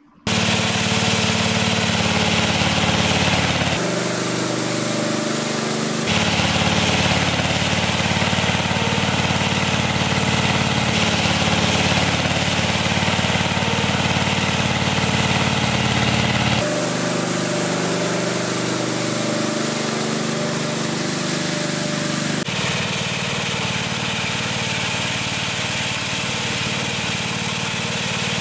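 Small petrol engine of a Westermann ride-on yard machine running steadily under work. Its pitch and tone change abruptly several times.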